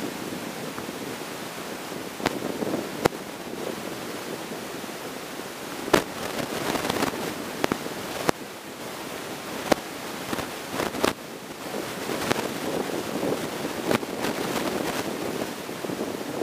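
Tidal seawater moving around a submerged camera, heard from underwater: a steady rushing with about ten sharp clicks and pops scattered irregularly through it.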